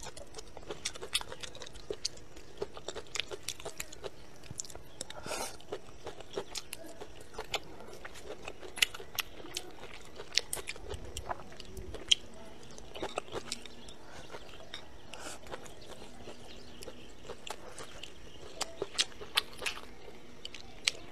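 Close-miked chewing and biting: a woman eating spicy pork and green chili peppers, with irregular wet mouth clicks and soft crunches.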